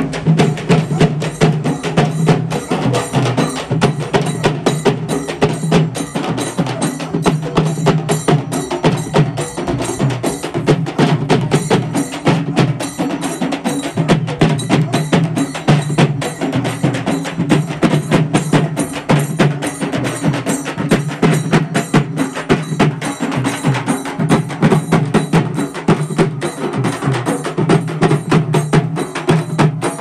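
A group of large tapou frame drums beaten with sticks in a fast, continuous rhythm, the many drums sounding together with a steady low ring under the strokes.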